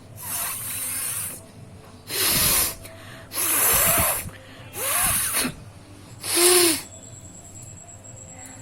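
A woman blowing her nose forcefully into a handkerchief five times in a row, each blow a hard rush of air lasting under a second.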